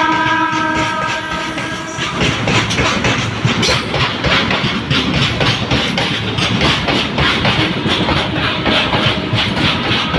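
A WAG-12B electric freight locomotive's horn sounds a held chord that cuts off about two seconds in, then the goods train rolls past with a steady, rapid clickety-clack of wagon wheels over the rail joints.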